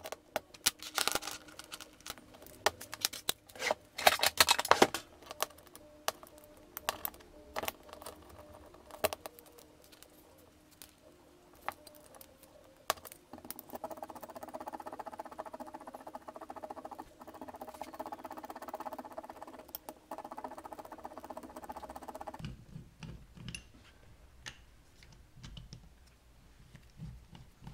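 Steel gear-puller parts clicking and clinking against each other and the bench while the puller is put together and set over the pinion bearing. A steady hum of unknown origin runs for about nine seconds in the middle, then stops abruptly. Softer handling thumps follow.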